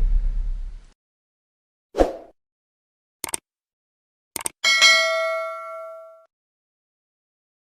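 A sequence of short sound effects: the fading tail of a deep boom, a short hit about two seconds in, two quick clicks, then a bell-like ding that rings for about a second and a half.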